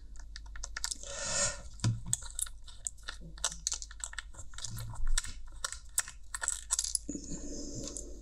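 Many small, sharp clicks and ticks of plastic headphone parts and tiny screws being handled as the earcup hinge is unscrewed and taken apart, with a brief scrape about a second in.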